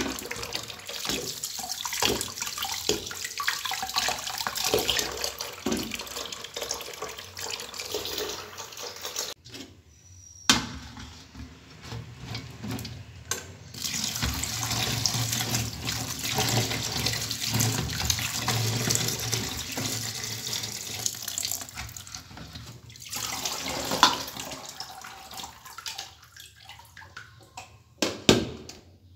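Kitchen tap running into a bowl of okra in a stainless-steel sink, the water splashing as the pods are rinsed by hand. The water breaks off briefly about ten seconds in, then runs again. It stops a few seconds before the end, with a couple of sharp knocks.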